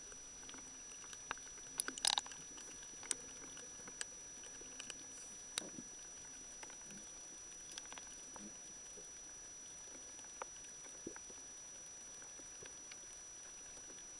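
Underwater sound picked up by a camera in its housing: a steady hiss with scattered sharp clicks, a small cluster about two seconds in and single ones every second or so after, and a thin steady high whine underneath.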